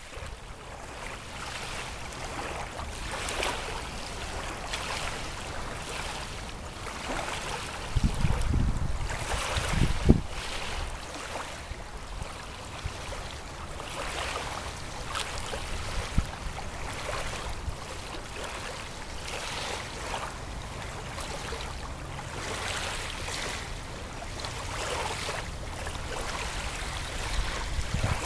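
Small wind-driven waves lapping on a sandy river beach, a steady washing that swells every second or two. Gusts of wind buffet the microphone now and then, hardest about eight to ten seconds in and near the end.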